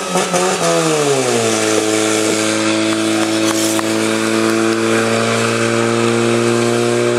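Portable fire pump's engine revved up hard, its pitch climbing, dipping and climbing again, then held steady at high revs as it drives water into the attack hoses.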